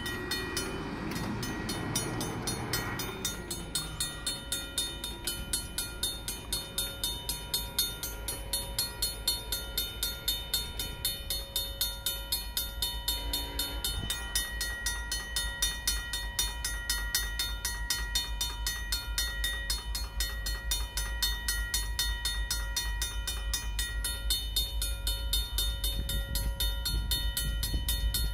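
Railroad grade-crossing warning bells, among them a Safetran mechanical bell, ringing in rapid, even strokes as the crossing is activated, over a steady low rumble.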